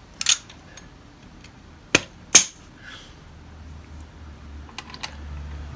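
Sharp knocks and clicks of hand tools against parts of the car's rear brakes: a pair just after the start, a louder pair about two seconds in, and a few small ticks near the end, with a low hum rising near the end.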